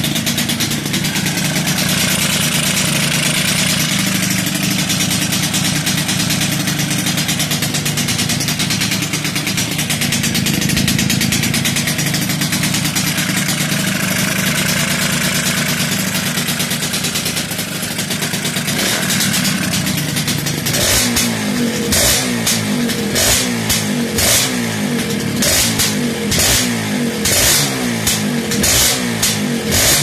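Suzuki X3 motorcycle engine running through an aftermarket chrome silencer, held steady for most of the time. Then, a little after two-thirds of the way in, it is blipped up and down over and over in quick throttle stabs.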